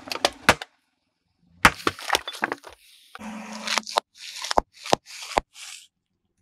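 A car tyre rolling over and crushing sealed packets of crisps: the bags burst with sharp pops amid crunching and crackling of the chips. A few sharp cracks come at the very start, then a short pause before the main crunching.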